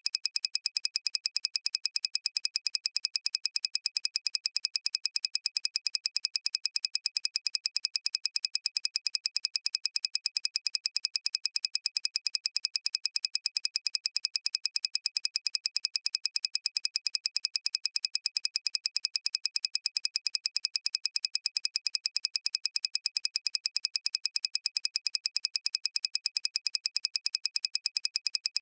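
Rapid, evenly repeating high synthesized ping sound effect, one per animated ball dropping into the square, going on at a steady pace.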